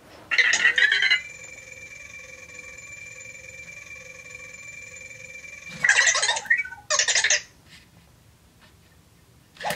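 Anki Vector robot making its electronic sounds while it tries a requested wheel-stand trick: a short loud burst, then a steady hum of several tones held for about four and a half seconds, then two more short loud bursts.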